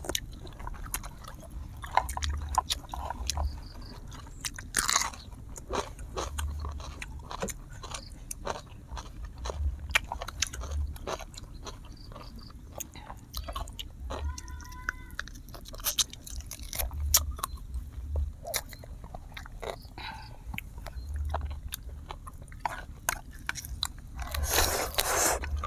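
Close-miked biting and chewing of grilled duck, with crisp crunches and wet mouth clicks over a soft rhythmic thud of the chewing. A louder crunch comes near the end.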